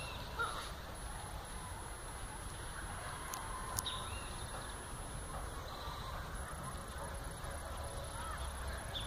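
Lakeside outdoor ambience: a steady low rumble and hiss with a few faint bird calls, and two sharp clicks about three and a half seconds in.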